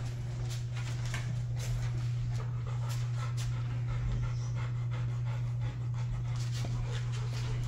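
Rottweilers panting, with short irregular clicks and scrapes as one gnaws a toy, over a steady low hum.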